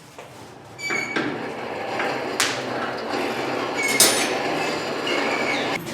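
Steady rushing of a forge's air blast that starts about a second in and cuts off just before the end, with a few sharp metallic clinks of steel and tongs over it as the workpiece goes back into the fire.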